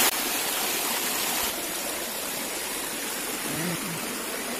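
River water running steadily, a constant rushing hiss that drops suddenly in level at the start and again about a second and a half in.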